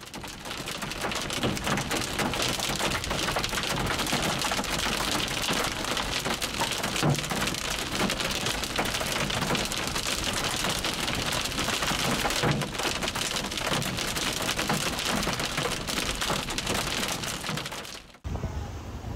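Hail and rain pelting a vehicle, a dense steady patter of hard ticks with a few heavier knocks; it cuts off suddenly near the end.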